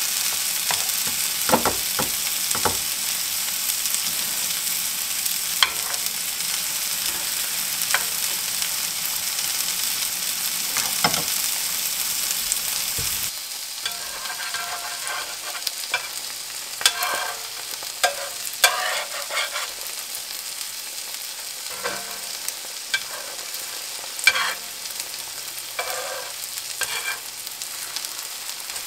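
Egg-and-onion mixture frying in a cast-iron skillet: a steady sizzling hiss with occasional clicks. About 13 seconds in the sizzle drops quieter, and a metal fork scrapes and taps against the skillet as the egg patties are worked.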